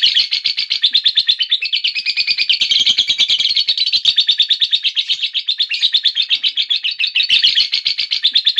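Lovebird giving its long 'ngekek' chatter: a fast, unbroken run of shrill repeated notes, several a second, with no pause.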